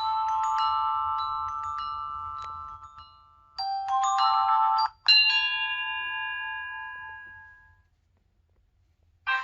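T-Mobile HTC HD2 ringtones played one after another: bell-like chime tones ringing and fading, a short phrase that cuts off abruptly about five seconds in, then another chime that rings out and dies away. After a second of near silence, the next ringtone starts right at the end.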